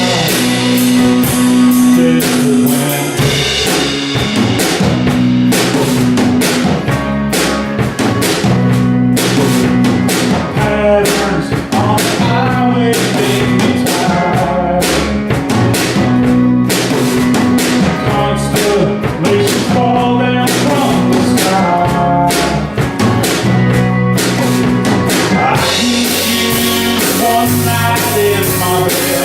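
A band rehearsing live: a drum kit keeps a steady beat under bass and electric guitar, playing without a break.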